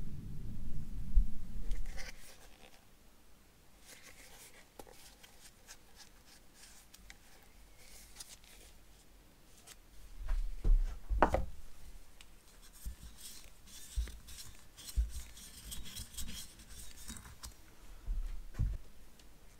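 Quiet handling sounds of nitrile-gloved hands working on a brake caliper and a tube of grease: rubbing, light ticks and a few low thumps, the loudest about ten to eleven seconds in. A low rumble fills the first two seconds, then stops.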